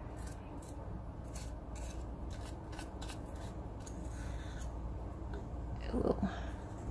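Small cleaning brush scratching and flicking cut hair out of the cutting head of a Split-Ender Pro 2 split-end trimmer: a quick, irregular series of short scraping strokes. A brief pitched sound comes near the end.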